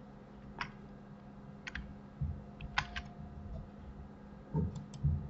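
Scattered clicks of a computer mouse and keyboard, about half a dozen sharp clicks a second or so apart, with a few soft low thumps among them.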